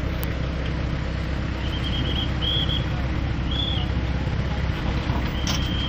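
Steady rumble of road traffic, with a few short high-pitched tones about two, two and a half and three and a half seconds in, and a longer one starting near the end.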